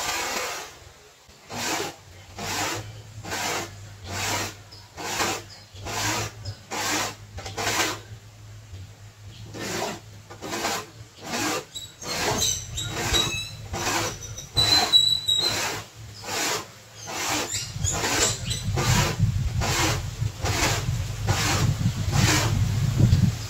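Dry scalded corn being grated by hand on a homemade board grater, a steady back-and-forth scraping with a stroke roughly every half second.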